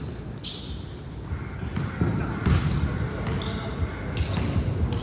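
Basketball game play on an indoor court: the ball bouncing on the floor with short, high sneaker squeaks, getting louder about two seconds in.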